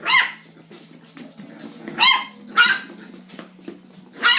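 Chiweenie puppy barking: four short, high-pitched yips, one at the start, two close together in the middle and one at the end.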